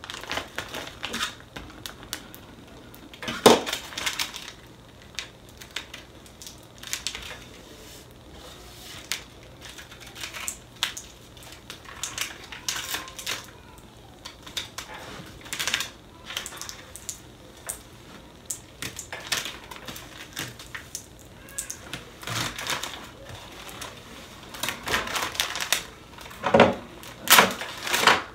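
Irregular clicks, taps and crackles of clear transfer tape being peeled off a vinyl stencil on a wooden board, as fingers press the vinyl down. There are a few louder knocks about three seconds in and again near the end.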